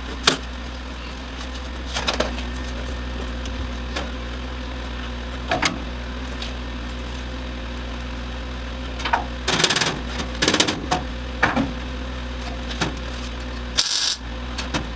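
A steady low hum from a running motor, with scattered sharp knocks and a few short scraping bursts of metal parts being worked on; the loudest bursts come about two-thirds of the way through and near the end.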